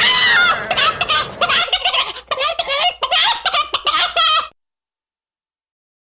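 Gobbling, turkey-like fowl calls, rapid and wavering in pitch, that cut off abruptly about four and a half seconds in.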